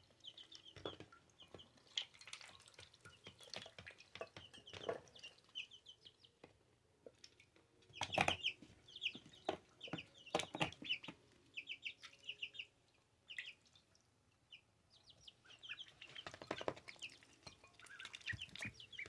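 Two-week-old ducklings peeping: clusters of short high chirps, mixed with scattered sharp clicks and taps.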